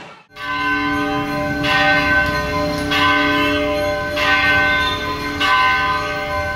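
A large bell tolled at an even pace, about one stroke every 1.3 seconds, five strokes in all, each ringing on under the next.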